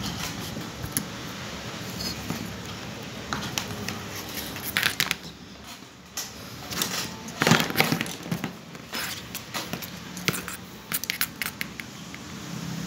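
Irregular clicks and light rattles of a thin stainless-steel wire cable and plastic guide parts being handled as the cable is wound onto a power-window regulator motor's spool, with louder clusters of clicks about five and seven and a half seconds in.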